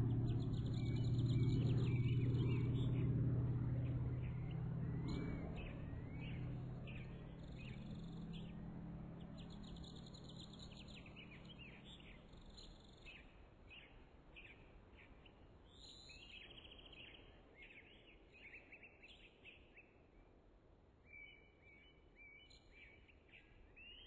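Small birds chirping and tweeting over and over, above a low steady hum that fades away during the first half. The whole sound slowly grows quieter.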